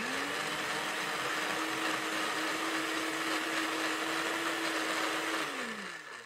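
Electric kitchen blender running. The motor starts abruptly and quickly reaches speed, runs at a steady pitch with a broad hiss, then winds down with a falling pitch near the end.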